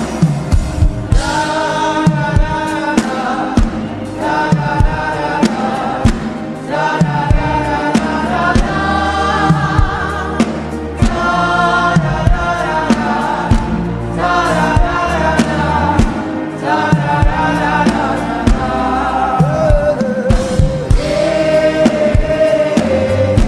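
Gospel worship music: a choir sings long, held notes over a steady beat.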